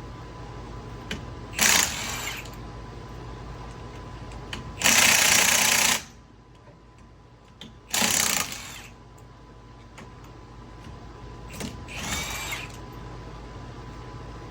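Impact wrench run in four short bursts, the longest and loudest about five seconds in, spinning lug nuts off a car's front wheel.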